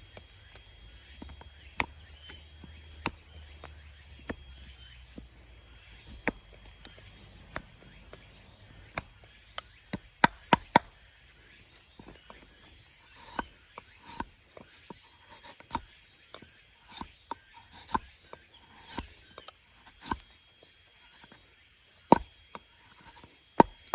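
A blade cuts into wood while a mallet handle is carved, making irregular sharp knocks and clicks. They come about once a second at first and quicker and louder about halfway through.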